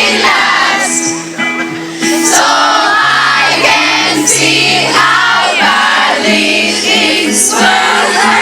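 Live pop music over a hall's sound system, sustained keyboard and bass notes with singing over them, mixed with the voices of a crowd.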